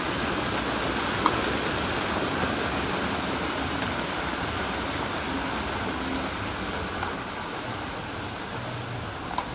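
Breaded chicken pieces deep-frying in a large steel pan of hot oil: a steady loud sizzle that eases slightly toward the end, with a sharp metal click about a second in and another near the end as a fork works the pieces.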